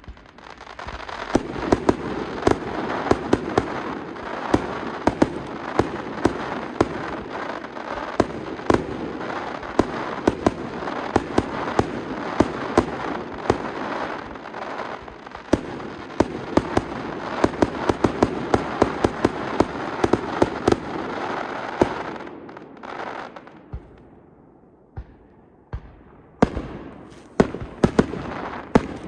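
Aerial fireworks shells bursting in rapid succession: dense bangs over continuous crackle for about twenty seconds. The volley then thins out and a fresh run of sharp bangs starts near the end.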